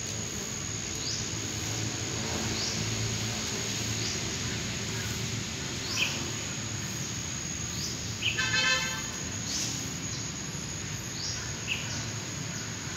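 Outdoor ambience: a bird chirping short falling notes about once a second over a steady high insect drone and a low rumble, with one brief buzzy, horn-like note about eight seconds in.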